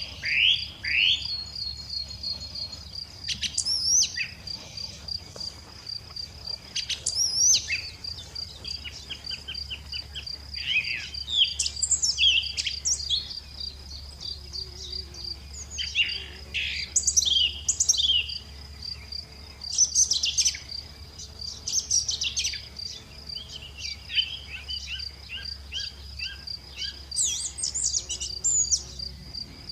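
Lovebirds chirping: quick, sharp, high calls that come in bursts every few seconds. A steady, fast-pulsing high trill runs underneath.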